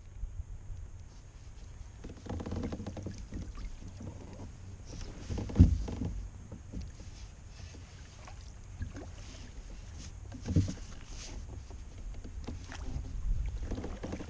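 Knocks and thumps on a plastic fishing kayak's hull over a steady low rumble while a hooked bass is reeled in to the boat. The loudest thump comes about five and a half seconds in, another about ten and a half, and the fish splashes at the surface near the end.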